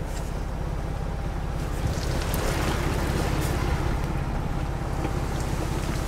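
A Ford Bronco's 2.7 L twin-turbo EcoBoost V6 drones low and steady at crawling speed while its front tire pushes through muddy creek water. The water sloshes and splashes around the wheel, growing louder about two seconds in.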